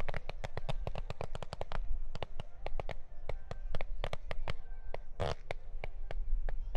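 Fireworks going off in rapid succession: many sharp bangs and crackles each second over a low rumble, thinning a little after the first two seconds, with one longer burst about five seconds in.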